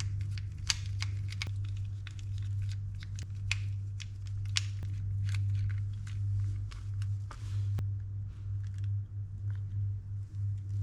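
Small clicks and taps of a screwdriver and fingers working on an Okuma Epix EB80 baitcasting reel as its side cover is taken off, over a steady low hum.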